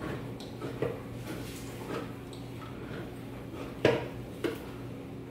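Hand-held safety can opener being cranked around a metal can of chicken broth, giving a few irregular clicks and knocks, the loudest a little before the end. A steady low hum runs underneath.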